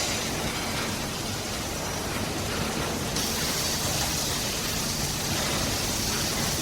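Slaughterhouse ambience: a steady rushing noise with no distinct events, its high hiss growing brighter about three seconds in.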